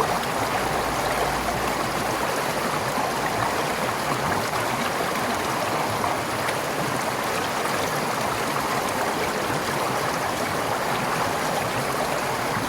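Forest stream flowing over rocks, a steady rush of water with gurgling.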